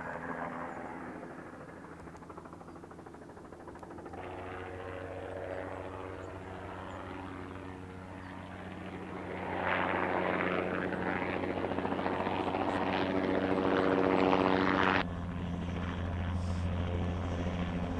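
Low-flying helicopter with its rotor beating steadily. It grows louder about halfway through, and the sound shifts abruptly twice.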